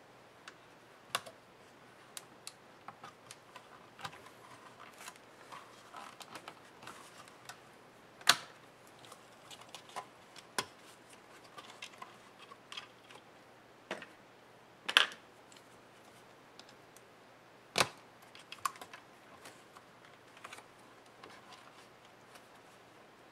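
Scattered small clicks and taps of plastic and cable handling on a Lenovo ThinkPad E550 laptop as its internal cables and connectors are freed, some with a small screwdriver. A few sharper clicks stand out, about a third of the way in, around the middle and past three quarters of the way.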